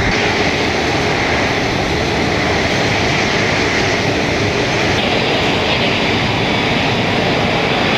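Boeing 747-300's four turbofan engines at taxi power, a steady jet rush and whine as the jumbo taxis past. The sound turns hissier about five seconds in as the aircraft swings away and its engine exhausts face the listener.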